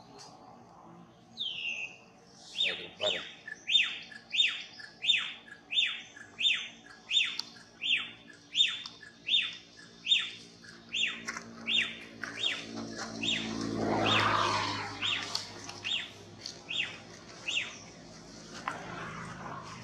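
A bird calling a long run of short, sharp falling notes, about two a second, over a faint steady hum. Around two-thirds of the way through, a broader low sound swells and fades beneath the calls.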